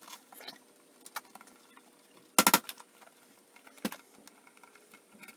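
Small hard parts being handled: scattered light clicks and knocks, with a louder short clatter about two and a half seconds in and a single sharp knock a little over a second later.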